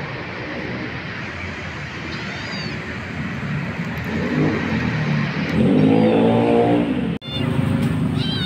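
Steady street traffic noise, with a vehicle engine revving up and passing close by, loudest about six seconds in. The sound cuts out abruptly for an instant about a second later.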